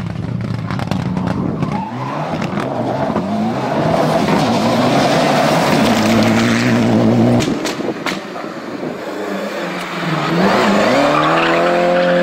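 Rally cars at full throttle. A Mitsubishi Lancer Evolution rally car's turbocharged four-cylinder accelerates past with its engine note climbing. After a cut, a second rally car accelerates hard, its engine rising steeply through the revs with a brief dip near the end.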